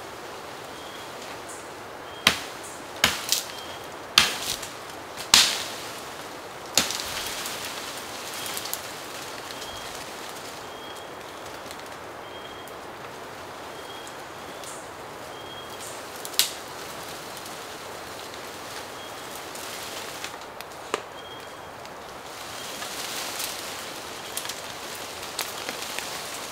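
About six sharp strikes close together in the first seconds, then single ones near the middle and later, over a steady outdoor background. A short high note repeats about once a second through the first half.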